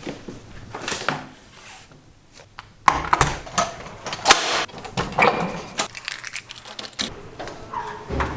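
Irregular clicks, clinks and rattles of small hard objects being handled, sparse at first and busier and louder from about three seconds in.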